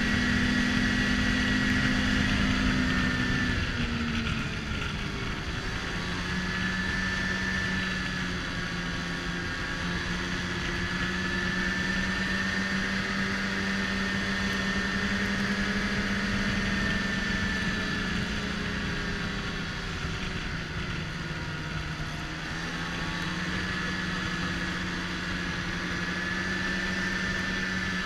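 Snowmobile engine running while riding, its note steady with two dips in pitch, about four seconds in and again around twenty seconds in, each time climbing back up as the throttle is eased off and reapplied.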